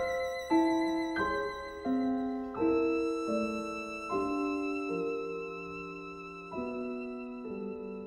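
Violin and piano duo playing slow classical music. The grand piano strikes a slow succession of chords that are left to ring, coming further apart near the end, under a high violin note held with vibrato.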